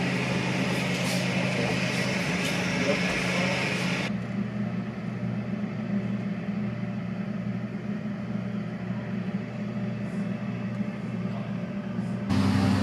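Steady droning hum of aircraft engines running on an airport apron. There is a hissing edge at first, a drop to a lower, quieter hum about four seconds in, and a sudden louder hum near the end.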